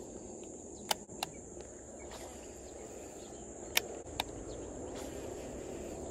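Steady high-pitched insect drone, with four sharp clicks from a Shimano SLX baitcasting reel as the rod is cast and wound in: two about a second in and two near four seconds in.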